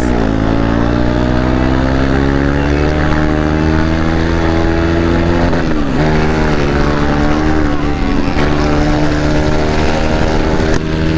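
KTM 390's single-cylinder engine with an open exhaust, accelerating under way: its note climbs steadily, drops at a gear change about six seconds in, then climbs again, over wind noise.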